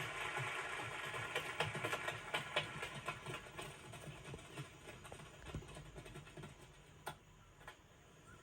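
Irregular quick clicks and ticks over a noisy background that fades away, with a few sharper isolated clicks near the end.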